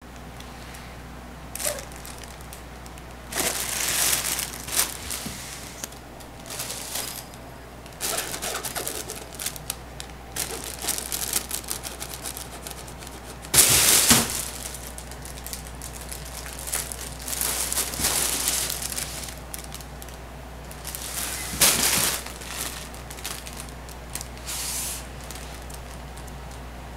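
Vinyl cat play tunnel crinkling and rustling in irregular bursts as a cat plays in and against it, with the loudest scramble about halfway through.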